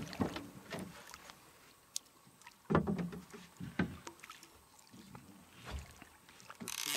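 A hooked Papuan black bass splashing at the water's surface beside the boat, in irregular bursts, while it is played on the line.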